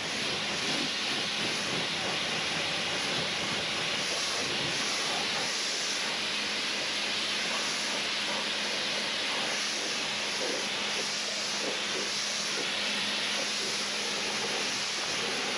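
A steady, continuous spraying hiss that does not let up, with a faint low hum underneath.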